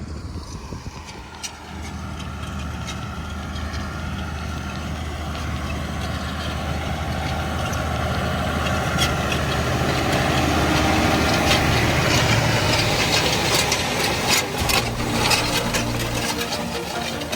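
Tractor engine running steadily while pulling a seed drill, growing louder over the first ten seconds or so, with scattered clicks and rattles.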